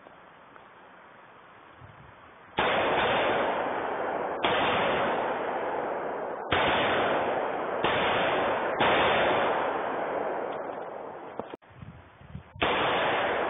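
AR-15 rifle with a Battle Comp 1.0 muzzle brake firing 5.56mm M193 55-grain rounds semi-automatically: six single shots about one to two seconds apart, starting a few seconds in, with a longer pause before the last. Each shot is loud and trails off slowly.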